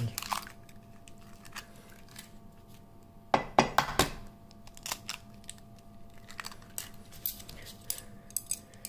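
Two eggs cracked on the rim of a porcelain bowl: sharp taps and shell cracking, loudest about three and a half seconds in, with lighter clicks of shell being handled in between.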